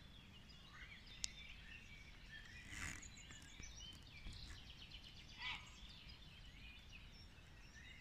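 Near silence: faint outdoor background with a few faint bird chirps scattered through it.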